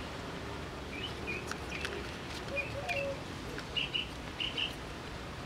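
Birds chirping in the background: scattered short, high chirps, two of them quick doubled chirps late on, with a few lower calls. Faint scattered clicks run underneath.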